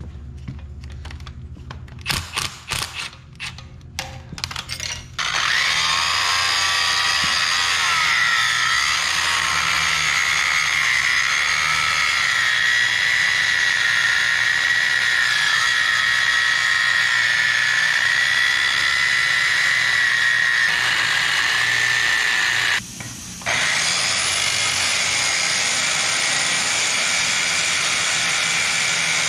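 A hand ratchet clicking in short bursts, then an angle grinder cutting into the steel of the stump grinder's removed pillar bearing assembly: a loud, steady high whine from about five seconds in, stopping for a moment near the end and starting again.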